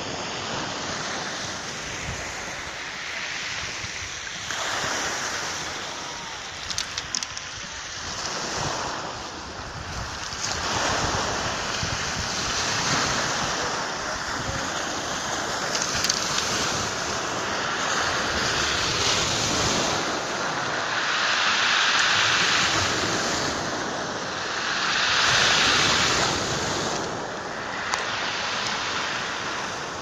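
Sea waves breaking and washing up a pebble beach, the surf swelling and falling back every five or six seconds, with wind buffeting the microphone.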